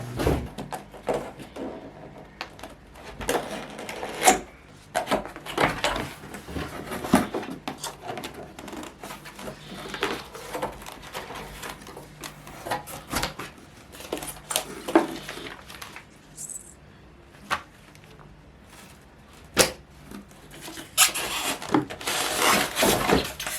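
Cardboard box and packaging being opened and handled: scattered clicks, knocks and rustling bursts, with a few louder knocks along the way.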